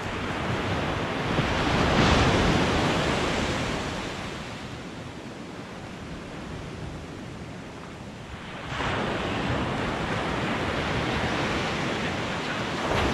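Ocean surf breaking and washing up a sandy beach: the wash swells to a peak about two seconds in, eases off, then comes up again suddenly about nine seconds in with the next wave.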